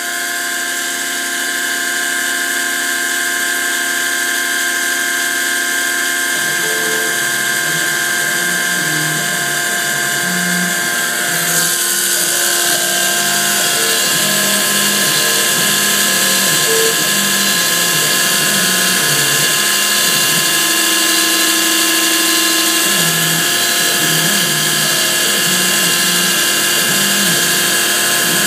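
CNC-converted Grizzly G0704 milling machine cutting a Delrin plate: the belt-driven spindle runs steadily at about 4,500 RPM while a 1/16-inch end mill traces the click-wheel tooth profile at 12 inches per minute. From about six seconds in, the axis stepper motors add short tones that jump from pitch to pitch as the table moves.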